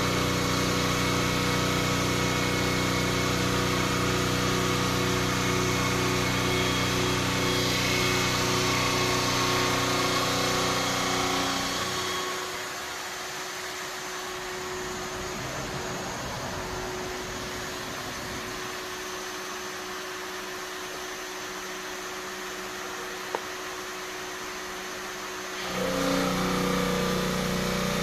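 CNC bridge saw cutting a Botticino marble slab: a steady machine hum with several held tones, which drops quieter and loses its low tones at about twelve seconds, then comes back louder near the end.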